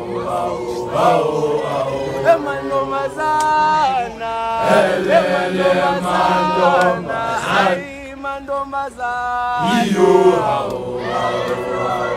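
Group of schoolboys singing a chant-like song together in unison, with long held notes and a brief lull about eight seconds in.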